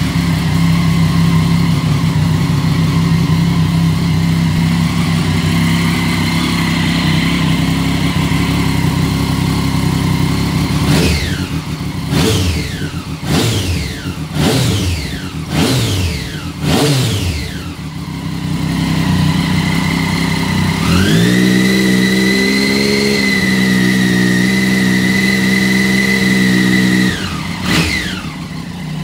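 Triumph Daytona 675's inline three-cylinder engine running through an Akrapovič aftermarket exhaust: idling, then revved in a run of quick throttle blips that each fall back sharply. It is then held at a steady higher rpm for about six seconds, drops back to idle, and gets one more blip near the end.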